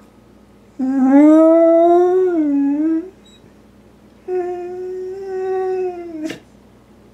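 Beagle-basset hound mix howling: two long howls, the first rising in pitch, dipping and coming back up, the second held steady and then falling away, ending in a sharp click.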